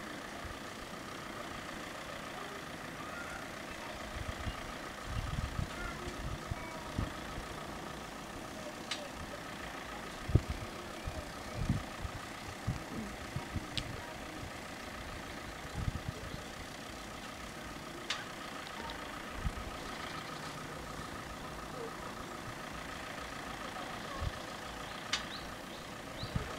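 Cars idling faintly while they wait at lowered level-crossing barriers, with a faint steady high hum throughout. Wind buffets the microphone in low thumps, strongest about ten and twelve seconds in.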